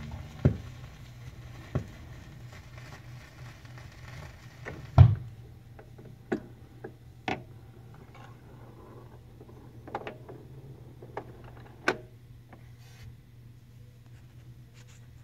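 A 45 rpm vinyl single turning with the stylus in the run-out groove after the song has ended: quiet surface noise and a low hum, with scattered clicks and pops, some about a second and a third apart. The loudest is a thump about five seconds in.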